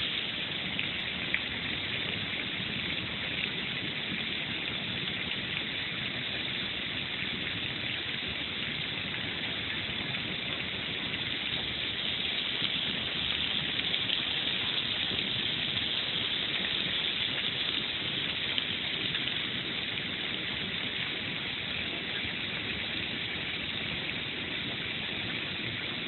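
Small garden waterfall: water spilling over stone ledges and splashing steadily into a pond.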